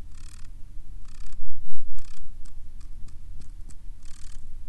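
Courtship purr of a male wolf spider (Gladicosa gulosa): short buzzy bursts about a second apart, with a quicker run of faint clicks in the middle, over a low steady hum.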